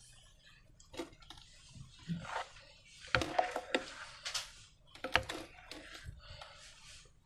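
Slime-making handling sounds: irregular sticky squishes and crackles with a few sharp clicks.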